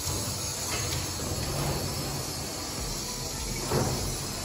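Handheld shower sprayer running, water hissing steadily onto a wet dog and a stainless steel tub, with a brief louder swell near the end.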